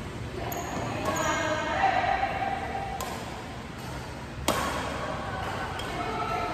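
Badminton play on an indoor court: a few sharp racket strikes on the shuttlecock, with short high-pitched shoe squeaks on the court floor.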